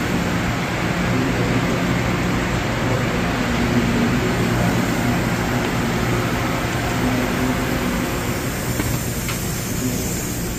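Steady air-conditioning and ventilation hum with a rush of air, with a low drone, beside a high-speed electric train standing at the platform.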